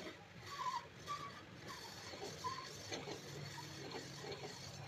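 Honda CG125 cylinder sleeve being polished by hand on a honing machine's rotating mandrel: a faint, steady machine hum with short, irregular squeaks from the hone against the bore as the cylinder is worked back and forth.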